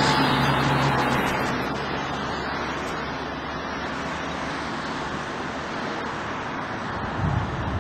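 Road traffic noise: a passing vehicle's hum fades out in the first second or two, leaving a steady hiss of road noise.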